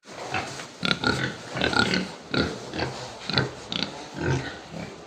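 Pigs grunting: a run of short grunts, about two a second.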